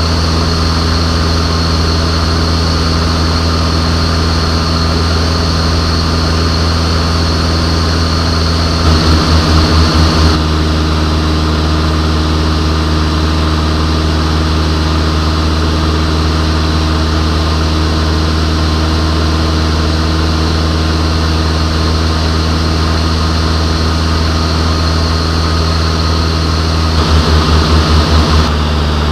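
Van's RV-6A light aircraft's piston engine and propeller droning steadily, heard from inside the cockpit in cruise flight. The drone briefly pulses twice, about nine seconds in and again near the end.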